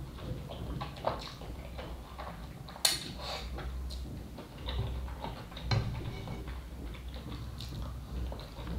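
Instant ramen noodles being slurped off chopsticks and chewed, close to the microphone, with scattered small mouth sounds. The loudest is a short, sharp noise about three seconds in.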